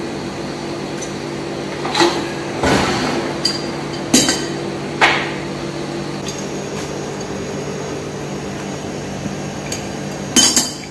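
Metal hand tools clanking and clinking as they are handled against the unit's metal, about half a dozen sharp knocks spread through, over a steady hum.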